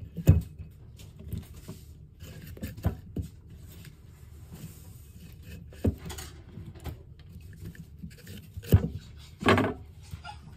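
Cut cucumber spears and rounds being pushed by hand into a glass jar: scattered soft knocks and scrapes against the glass, with a sharp knock just after the start and a couple of louder ones near the end.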